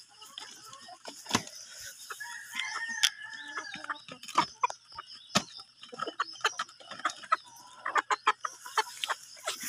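Chickens calling, with one drawn-out call from about 2 to 4 seconds in, over sharp clicks of a rooster pecking grain from a small clay bowl; the pecks come in a quick run near the end.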